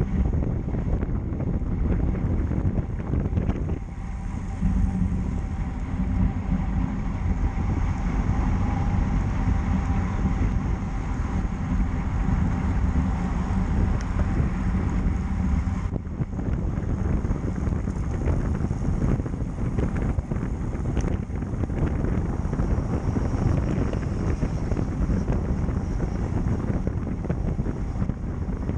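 Wind rushing over a riding cyclist's camera microphone at speed: a steady low rumble, with a faint steady hum through the middle stretch.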